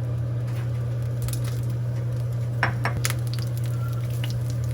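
Kitchen clatter: a few light clinks and taps of utensils and dishes, the clearest a little past halfway, over a steady low hum.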